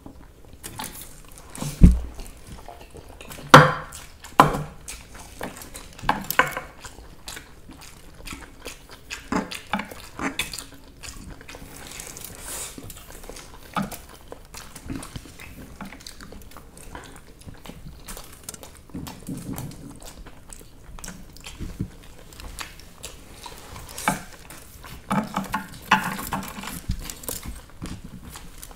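Masala Maggi instant noodles being eaten: cutlery clinking and scraping on plates, with chewing and slurping. The clinks come at an irregular pace, and a few sharp ones in the first few seconds are the loudest.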